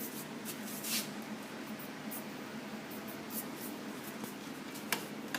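A short squirt from an aerosol lubricant can about a second in, aimed at a dirt bike's rear brake, with a few light clicks of handling over a steady low hum.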